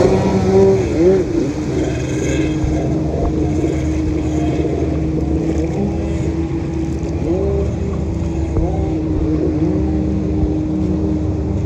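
Kawasaki X2 jetski's two-stroke engine revving up and down again and again in short sweeps as the rider spins and throws spray. A steady engine drone and splashing water run underneath.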